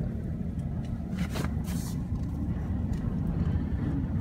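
Steady low rumble of a vehicle heard from inside its cab, with a brief hiss lasting under a second about a second in.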